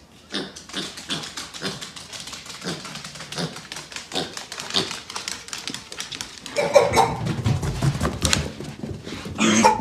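A piglet's hooves clicking and tapping rapidly on a hardwood floor as it trots along. About two-thirds of the way through, a louder, lower stretch takes over, and a short pitched sound comes near the end.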